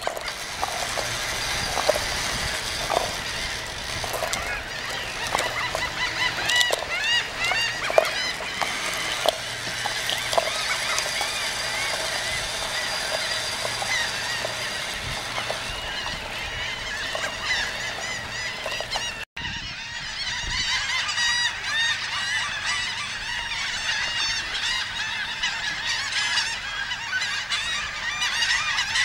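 A dense chorus of many birds calling over one another, a constant stream of short nasal calls. There is a brief dropout about two-thirds of the way through.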